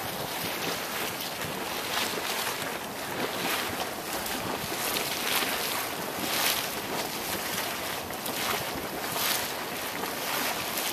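Geothermal hot pool boiling and steam vents hissing: a steady rushing, splashing noise that rises and falls in repeated surges.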